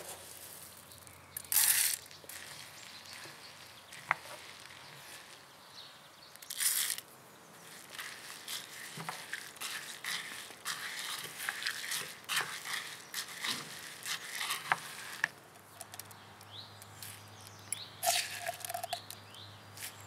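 Bird seed and sunflower seeds rattling as they are tipped into a pot of melted coconut fat, then many small clicks and scrapes as a wooden spoon stirs the seeds in the fat and lifts the mixture into a mug. Two louder rustling pours come in the first seven seconds, and the clicking gets busier after that.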